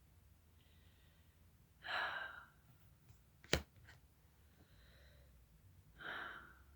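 A person breathing out audibly twice, about four seconds apart, with a single sharp tap between them.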